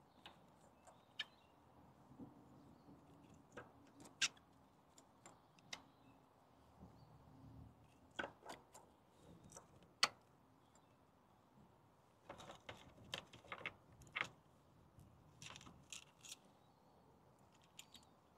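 Faint, scattered clicks and knocks of plastic ignition coils and their electrical connectors being handled and pushed into place on a Honda Civic engine. The sharpest clicks come about four seconds in and about ten seconds in, with a quicker run of clicks a little past twelve seconds.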